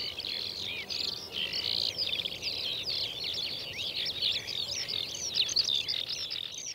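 Several birds singing at once: a dense, continuous chorus of quick high chirps, trills and short whistles.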